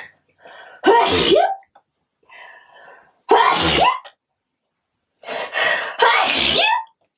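A woman sneezing three times in a row, loud and forceful, with quieter gasping breaths before each sneeze.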